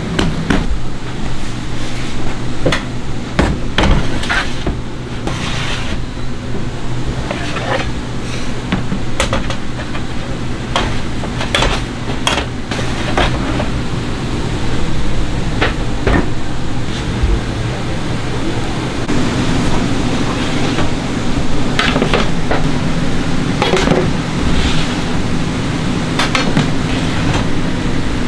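Metal baking trays knocking and clattering as they are handled, sharp irregular clanks over a steady machine hum.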